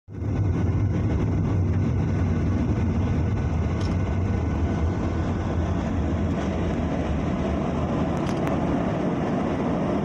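Cabin noise inside a Boeing 737 taxiing before takeoff: the jet engines at low power and the wheels rolling give a steady low rumble with a hiss over it.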